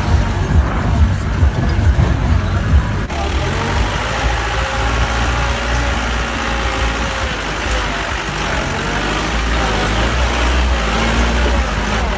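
A motor vehicle's engine running, with a low, steady drone. It is jolted by rapid irregular knocks for about the first three seconds, then changes abruptly to a smoother, steadier run.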